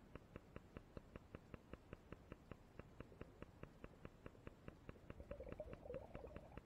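Faint, steady ticking, about five or six clicks a second, with a brief faint wavering sound about five seconds in.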